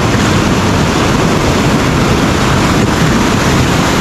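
Ocean surf breaking and washing up the beach, with wind buffeting the microphone in a steady rumble.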